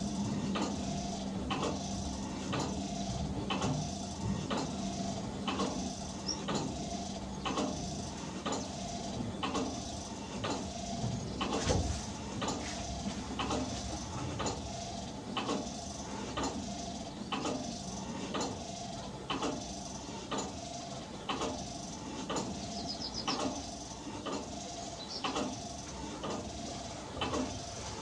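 Church bells pealing: several swinging bells striking in an even, overlapping rhythm, about one and a half strikes a second, each strike ringing on.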